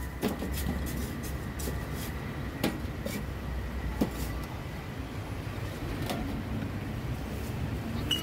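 A handful of sharp metallic clinks a second or two apart as a stainless-steel ladle knocks against coffee pots and cups, over a steady low rumble of street traffic.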